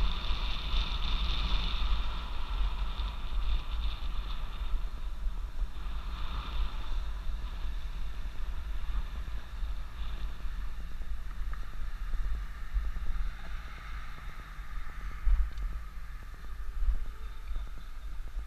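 Wind rushing over the microphone of a moving e-bike, with tyre and road noise. The higher hiss eases partway through as the bike slows toward a stop.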